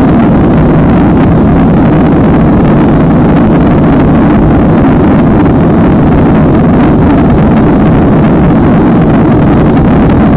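Boeing 737 jet engines at takeoff thrust: a loud, steady, unbroken roar that nearly overloads the phone's microphone.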